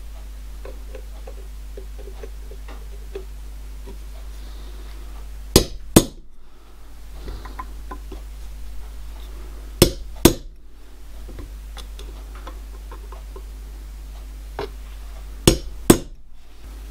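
A pointed prick punch tapped with a light hammer into a 316 stainless steel plate to mark hole centres. There are three pairs of sharp metallic taps, the two in each pair about half a second apart, over a steady low hum.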